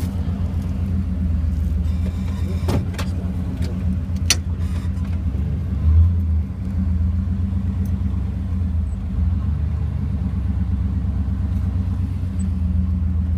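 Steady low rumble of a car heard from inside the cabin. A few sharp clicks and a brief thump about six seconds in come from the phone being handled.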